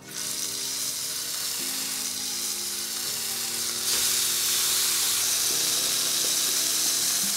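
Marinated skirt steak searing in a hot cast iron skillet: a loud sizzle that starts as the first piece hits the pan and grows louder about four seconds in as a second piece is laid in.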